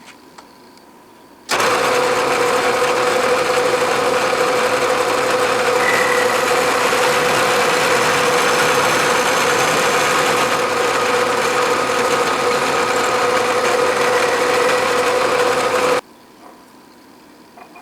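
Milling machine running, a 1/2-inch carbide end mill cutting a flat into a steel drill bit shank: a loud, steady whine that starts suddenly about a second and a half in and stops suddenly near the end.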